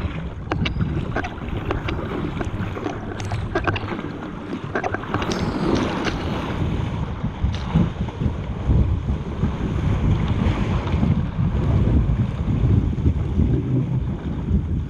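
Wind buffeting the microphone over water rushing and splashing along a surfski's hull as it rides choppy waves, with sharp splashes of paddle strokes, most frequent in the first half.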